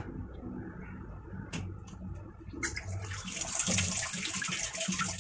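A few faint clicks, then water running with a steady hiss from about halfway through.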